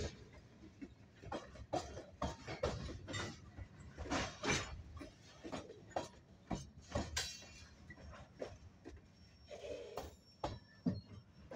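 Freight train of covered hopper cars rolling slowly past, with irregular metallic clanks and clicks from the cars' wheels and running gear over a low rumble.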